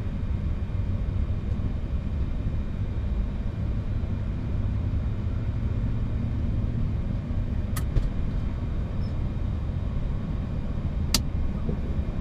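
Steady low rumble on a Boeing 737-800 flight deck as an engine is being started, just after fuel is introduced and the exhaust gas temperature climbs. Two sharp clicks come about 8 and 11 seconds in.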